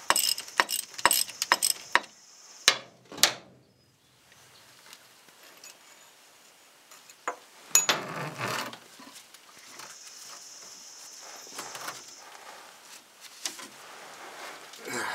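Socket ratchet clicking about four times a second for the first two seconds while backing out the last starter bolt, followed by two sharp knocks and then scattered metallic clinks and scraping as the loosened bolt and starter are handled.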